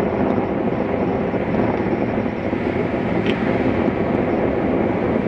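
Steady roar of ocean surf breaking on the beach, mixed with strong wind buffeting the microphone.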